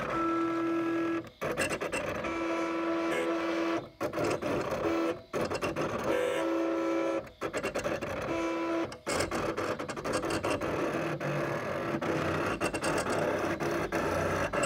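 First-generation Cricut CRV001 cutting machine cutting a gasket shape out of paper: its motors whine as the blade carriage and mat move, in short steady-pitched runs with brief pauses between them. After about nine seconds the runs give way to a busier, more continuous whirr.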